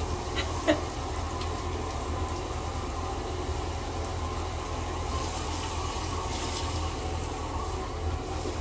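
Handheld shower head spraying water onto a dog's wet fur in a bathtub, a steady rush as the coat is rinsed.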